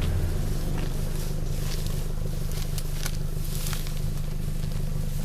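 Suzuki Jimny SJ410's four-cylinder petrol engine running steadily on an off-road drive, with a few sharp clicks and scrapes over it.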